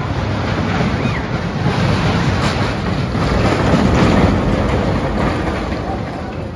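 Steel roller coaster train rumbling along its track overhead, swelling to its loudest as it passes about four seconds in, then easing off as it runs away.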